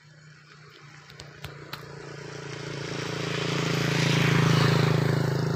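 A motor vehicle passing by: a steady engine hum with road noise swells to a peak about four and a half seconds in, then begins to fade.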